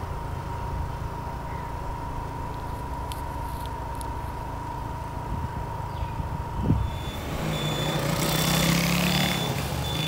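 Road vehicle engine and traffic noise with a steady high hum. About seven seconds in, the hum stops, the traffic noise swells, and a short high beep repeats several times.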